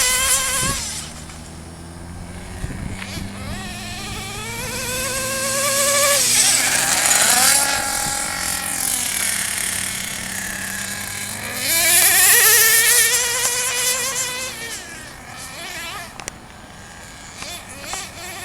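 Nitro RC car's small glow-fuel engine revving, its high-pitched whine rising and falling in pitch as the car speeds up and passes. It is loudest at the start and again about twelve seconds in, and quieter between passes.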